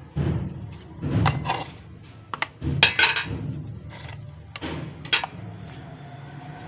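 Cooked pieces being lifted out of an electric sandwich maker's non-stick plates by hand: a handful of short scrapes and light knocks, over a steady low hum.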